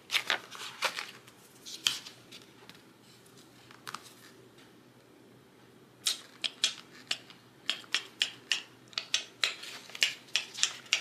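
Paper pages of a ring-bound sticker book being flipped: short crisp rustles and flaps, a few in the first two seconds, then a quick run of them over the last five seconds.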